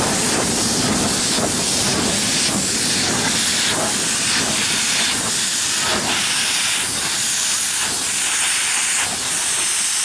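Miniature steam locomotive drifting in with steam escaping at the cylinders: a loud, steady hiss of steam with regular puffs through it.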